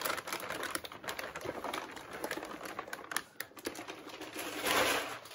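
Clear plastic wrapping crinkling and rustling as hands pull it off a boxed unit, a dense crackle of small ticks that swells louder near the end.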